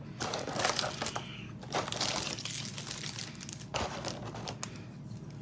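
Packaging being handled and opened by hand, crinkling and crackling in irregular spells, heaviest in the first couple of seconds and again near the end.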